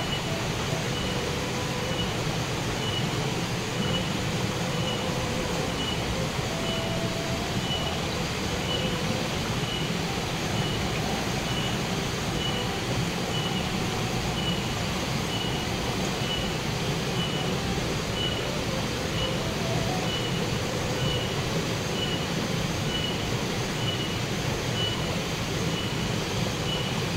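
Steady rushing of a nearby forest stream, with a high chirp repeating about once a second throughout.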